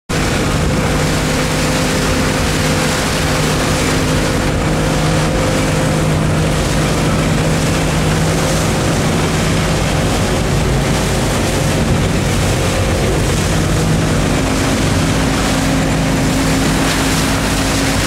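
A boat's engine running at a steady pitch as the boat travels across choppy sea, with water rushing past the hull and wind on the microphone.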